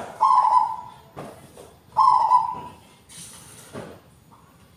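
Zebra dove (perkutut) cooing: two loud coos about two seconds apart, each roughly half a second long with a fading tail.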